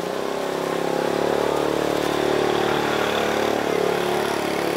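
An engine running steadily with a fast, even pulse.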